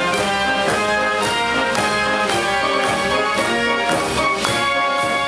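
Instrumental music with brass instruments and a steady beat.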